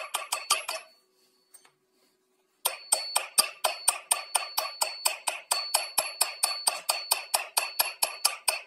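Rapid, even metallic clicking, about six clicks a second, from hand-tool work at the base of a surface water pump during reassembly. It stops about a second in and starts again near three seconds.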